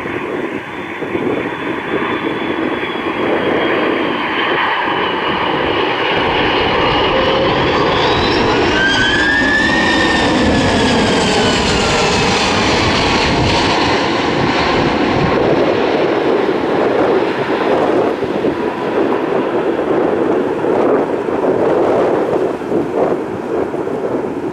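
Jet airliner passing by, its engines a loud steady rush with a whine that climbs and then falls in pitch as it goes past, the noise easing off in the last seconds.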